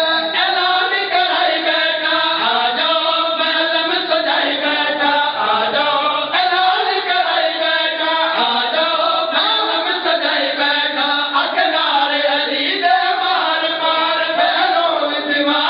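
A man chanting Punjabi devotional verse into a microphone, a melodic recitation with drawn-out notes that carries on without a break.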